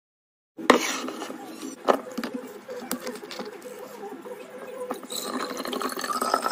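Groceries and containers being set down and knocked into place during a fridge or pantry restock: a few sharp knocks and light clinks of glass and hard plastic over a steady low hum, with a rising tone near the end.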